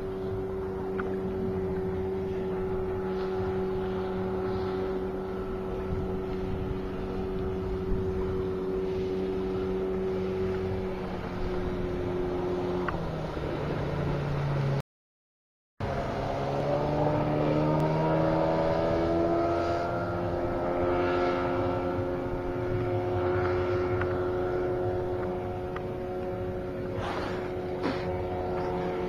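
Suzuki DT 9.9 two-stroke outboard motor running at speed on an inflatable boat with a steady engine note. The pitch drops about halfway through, breaks off briefly, then climbs again and holds.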